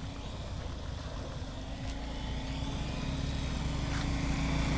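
Motorcycle engines running steadily as two motorcycles ride through shallow floodwater, growing louder as they approach.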